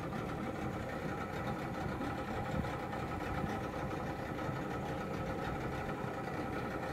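A boat engine running steadily at low speed, an even hum with a low rumble underneath.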